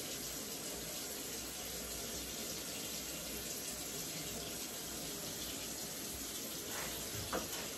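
Bathroom sink tap running steadily.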